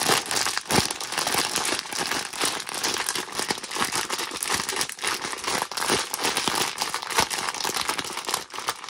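Plastic spawn bag crinkling as hands squeeze and knead it, breaking apart densely clumped, mycelium-colonized rye grain spawn; a steady crackle of shifting grain and plastic with a few louder cracks.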